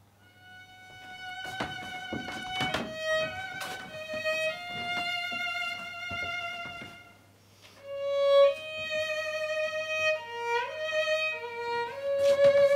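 Solo violin playing a slow melody of long held notes with small slides between them, fading away about halfway through and then coming back in.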